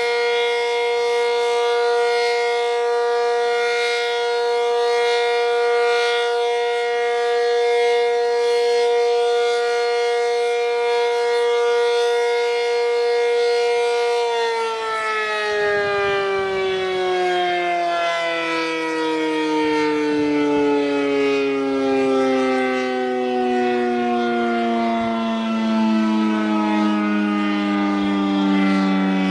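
ASC Cyclone C-125 outdoor warning siren, reverse-wired, sounding a steady full-alert tone, then winding down about halfway through, its pitch falling steadily to the end.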